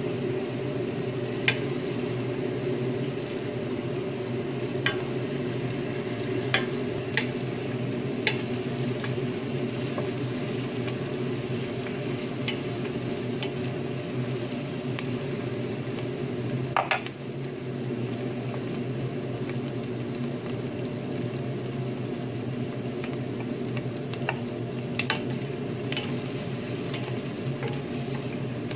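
Chopped onions sizzling as they sauté in a stainless steel pot, stirred with a wooden spatula that knocks against the pot now and then with sharp clicks. A steady low hum runs underneath.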